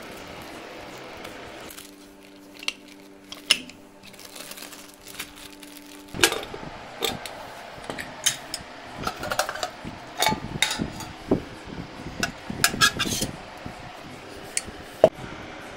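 Metal cookware being handled: a string of sharp clanks and clinks from an aluminium pressure cooker and stainless-steel bowls, starting about six seconds in. Before that there is a steady hum, which stops when the clanking begins.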